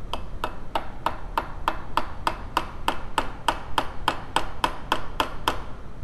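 Steady, rapid hammer taps on metal, about three a second, each with a short metallic ring, driving a steel roll pin into a distributor shaft. The taps stop near the end.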